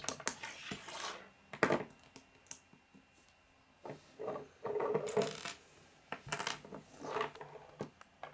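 Plastic K'nex pieces clicking and clattering as they are picked out and handled, in three short bursts of small hard knocks.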